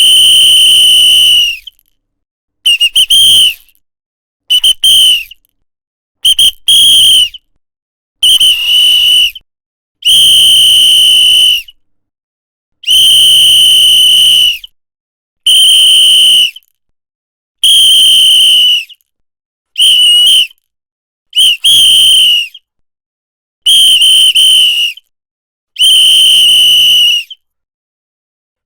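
A hand-blown whistle sounding about thirteen shrill blasts with short pauses between, some long and steady for one to two seconds, others short and broken into quick chirps.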